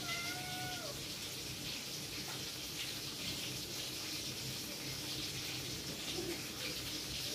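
Domestic cat giving one short, thin meow of about a second, dipping in pitch at the end, then a steady background hiss.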